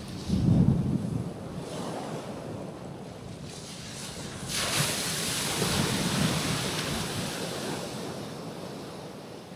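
Small ocean waves breaking on a rocky shore. One wave washes in with a rising hiss about four and a half seconds in, then slowly fades. Wind buffets the microphone with low rumbles near the start.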